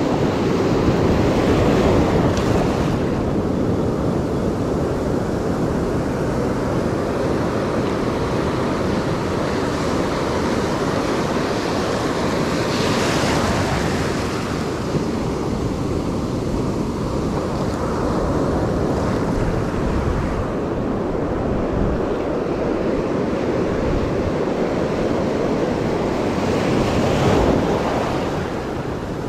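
Ocean surf breaking and washing through the shallows: a steady rush of water that swells louder about halfway through and again near the end.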